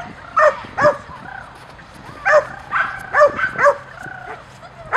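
Small dog barking: two barks close together, then a run of about five more barks beginning about two seconds in.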